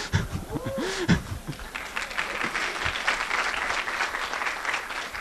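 Audience applauding, with a few voices calling out at the start before the clapping fills in.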